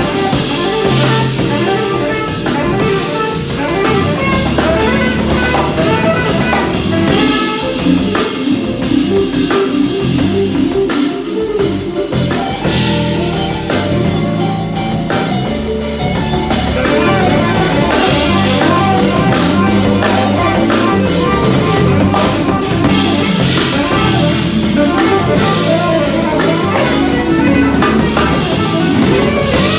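Live band playing through a song at a soundcheck, with a drum kit and guitar carrying a steady groove and cymbals washing in and out.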